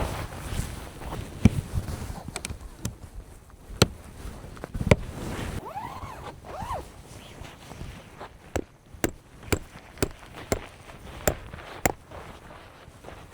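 A series of sharp knocks or clicks, irregular at first, then about two a second through the second half. There are two short rising-and-falling squeaks a little past the middle.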